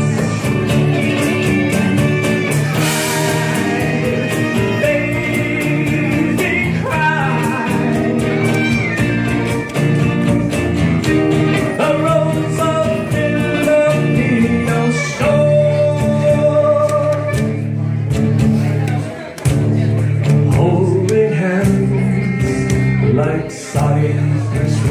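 Live band playing: a man singing over strummed acoustic guitar, clarinet and electric bass.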